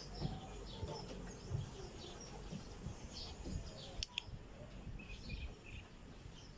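Small birds chirping steadily in the background over low rustling and handling noise, with a sharp double click of a dog-training clicker about four seconds in, marking the puppy's behaviour.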